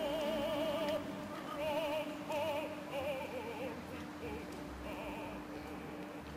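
A high voice singing in operatic style with wide vibrato: one long held note, then several shorter notes, over a steady low held tone, growing fainter toward the end.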